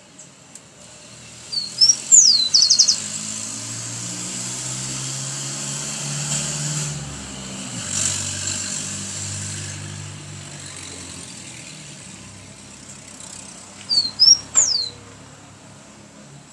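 Rufous-collared sparrow (chingolo) singing twice: a few short high whistles and a falling slur, the first time ending in a quick trill, about a second and a half in and again near the end. In between, a passing vehicle's hum swells and fades.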